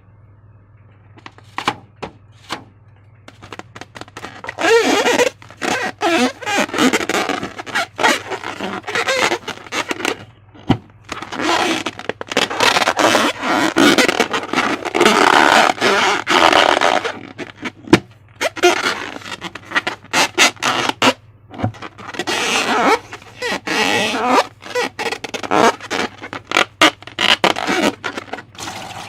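Slime being squished and stretched by hand: sticky squelching and crackling in irregular bursts, with many sharp clicks, starting about four seconds in.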